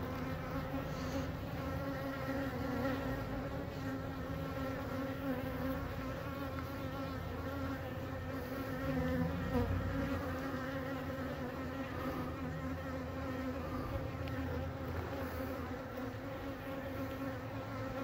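Honey bees humming around an opened hive: the steady buzz of many bees in flight, even and unbroken throughout.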